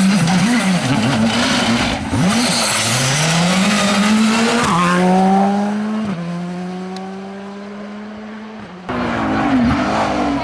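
Rally car engines in a series of cut-together passes: first an engine revving unevenly, then a car accelerating hard, its pitch climbing through two quick upshifts before the note steadies and fades as it drives away. Near the end another rally engine revving unevenly.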